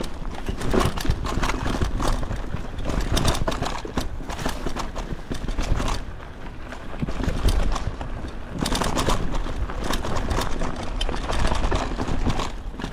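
Mountain bike rattling and clattering over a rough downhill trail, with dense irregular knocks from the frame and chain. A low rumble of wind buffets the microphone underneath.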